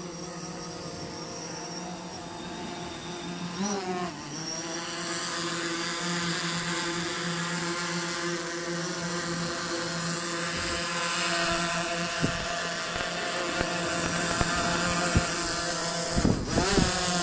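DJI Phantom 4 quadcopter's motors and propellers whining steadily. The pitch dips and recovers about four seconds in and again near the end, with a few sharp clicks in the second half.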